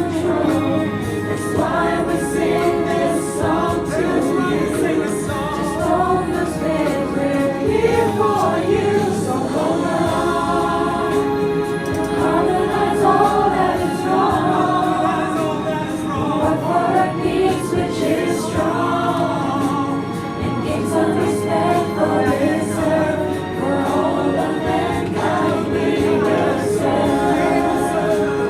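Music: a choir singing with instrumental accompaniment over a bass line whose notes change every few seconds.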